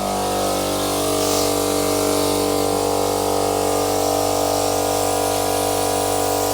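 Air compressor running with a steady, unchanging hum, supplying air to a pneumatic CV boot fitting tool.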